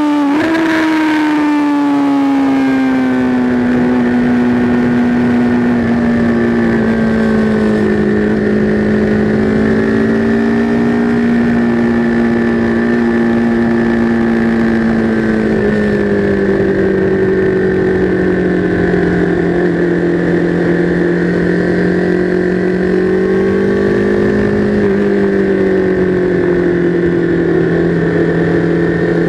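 Sport motorcycle engine running at speed, heard from on the bike with wind rushing past. The engine note falls in pitch over the first few seconds as the bike slows, then holds fairly steady, dipping and rising slightly with the throttle.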